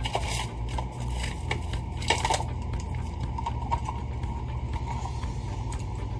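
Light clinks and knocks of small metal tools and parts being handled on a workbench, the loudest about two seconds in, over a steady low hum.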